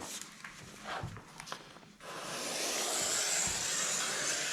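A long straight line being marked along a laminate floor board: a steady scratching that starts about two seconds in and lasts about three and a half seconds, after a few faint taps.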